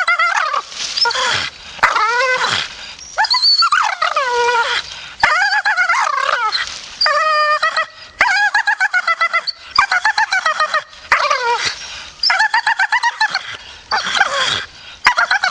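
A Staffordshire bull terrier "talking": a long run of whiny, grumbling vocalisations that waver up and down in pitch, often with a fluttering trill. Several calls slide down in pitch at the end.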